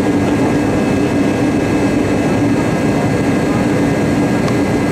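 Boeing 757 jet engines and airflow heard inside the passenger cabin: a steady, even rush of noise with a low hum underneath.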